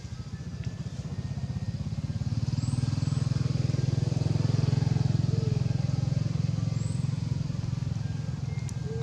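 Engine of a passing motor vehicle: a low, pulsing drone that grows louder over the first few seconds, peaks around the middle and slowly fades.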